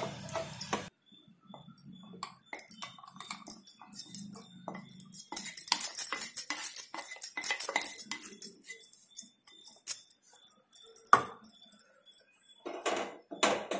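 Fried shallots and garlic cloves being tipped and scraped out of a metal kadai into a steel mixer jar: a run of small clinks and metal scrapes, then a couple of separate knocks near the end.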